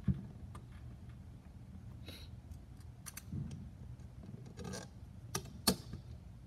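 Carbon fiber frame plates and braces handled and fitted together by hand on a silicone work mat: a soft knock at the start, scattered light clicks and rubbing, and two sharp clicks near the end, the loudest. A steady low hum runs underneath.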